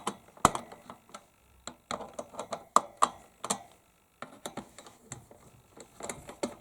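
Irregular clicks and taps of a hand screwdriver working the CPU cooler's mounting screws tight, a few sharp clicks a second with short pauses between.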